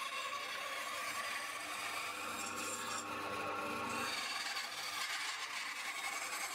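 Bandsaw running steadily as its blade cuts a kerf down a wooden tenon, the slot for a wedge, with a steady motor hum under the cutting noise.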